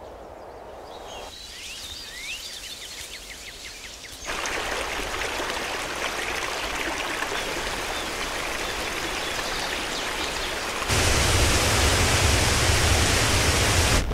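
A few high bird chirps, then rushing water. The water is a steady hiss that comes in abruptly about four seconds in, then jumps louder with a deep rumble about eleven seconds in.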